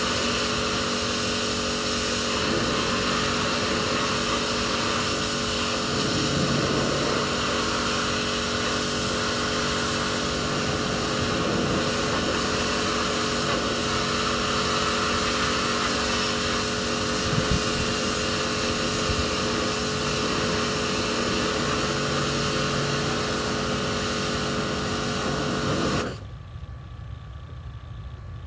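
Electric pressure washer running: a steady motor hum under the hiss of the water jet spraying onto the boat's deck. It cuts off suddenly near the end.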